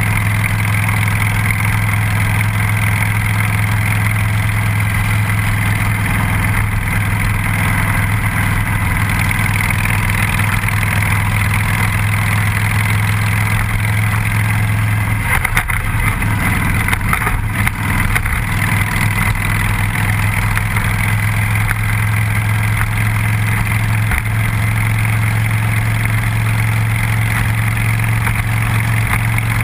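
Cruiser motorcycle engine running steadily while riding along a road, with wind noise over the microphone; about halfway through the sound wavers briefly before settling again.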